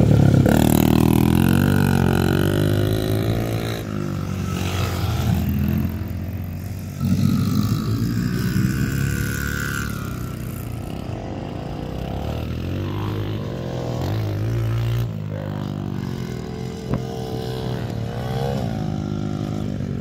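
Honda CRF70F's small four-stroke single-cylinder engine being ridden around a dirt motocross track, its pitch rising and falling repeatedly as the throttle is opened and rolled off. Loudest in the first few seconds as the bike passes close, with another surge about seven seconds in.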